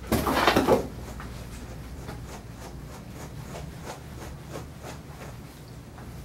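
De-shedding tool raked through a dog's coat in short strokes, a faint repeated scratching. A brief loud rush of noise, under a second long, comes right at the start.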